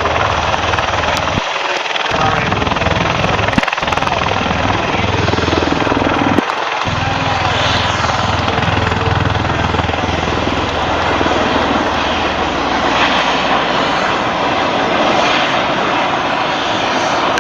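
Helicopter flying, its engine and rotor noise heard as a loud, steady rush, with a low hum that fades away about twelve seconds in.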